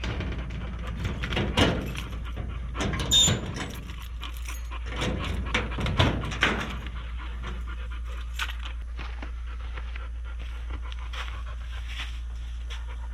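A dog panting, with several knocks and a short metallic clink in the first half, over a steady low hum.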